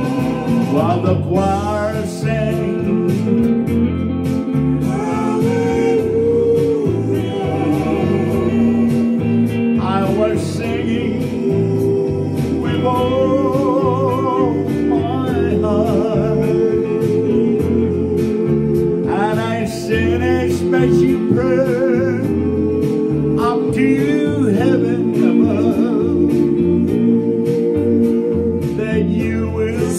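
A man singing a slow love song with long held notes and vibrato, to his own strummed acoustic guitar.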